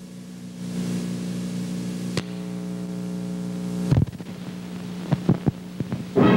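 Steady electrical mains hum with tape hiss as a videotape starts playing, broken by a click about two seconds in, a louder pop about four seconds in and a few crackles after it. Music starts right at the end.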